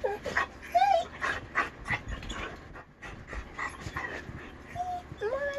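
Dog vocalizing in answer: several short whining, talking-like calls among bursts of panting, the last near the end rising and falling. One call sounds like "mom".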